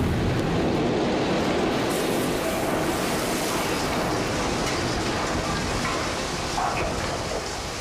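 Explosion sound effect: the long rumble of a large blast, loud at first and slowly fading.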